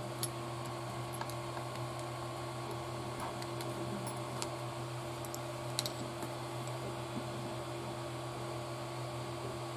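Faint light clicks and ticks of small plastic and metal kit parts being handled and fitted, a drive shaft and its pin, over a steady background hum. Two close clicks near the middle are the loudest.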